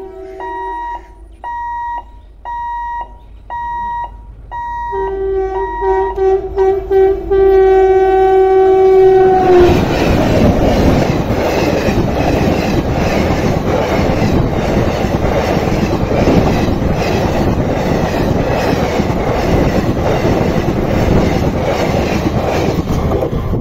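Repeated electronic beeping, about one and a half beeps a second, for the first five or six seconds. A locomotive horn sounds briefly at the start, then in one long blast that grows louder from about five to ten seconds in as the train approaches. Then a double-headed passenger express passes close by at speed, its coaches rushing by with a steady rhythmic clickety-clack of wheels over rail joints, easing off right at the end.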